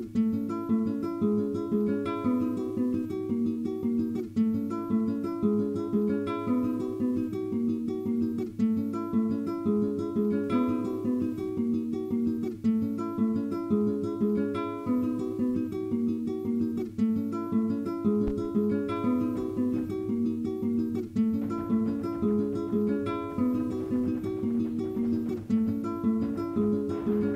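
Recorded music: a plucked guitar picking a quick repeating figure of notes over a steady low hum.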